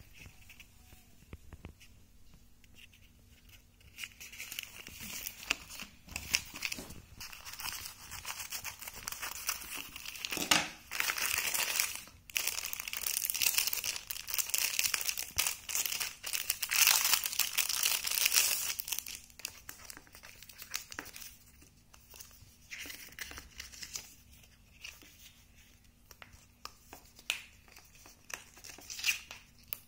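A paper courier mailer being torn open and a clear plastic bag crinkled as a phone case is unwrapped by hand. Quiet handling for the first few seconds, then dense tearing and crinkling that is loudest through the middle stretch, followed by lighter rustles near the end.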